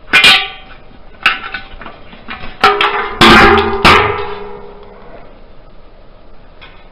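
About five sharp metallic knocks and clanks on the thin stainless-steel body of a homemade conical fermenter as the wooden jig is knocked off a freshly tacked tri-clamp fitting. The loudest pair, about three seconds in, leave the steel ringing for a second or two.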